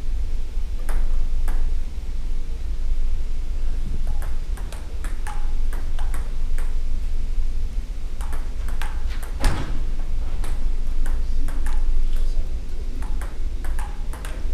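Table-tennis ball clicking off paddles and the tabletop in a rally, a quick run of sharp ticks from about four seconds in, over a steady low hum.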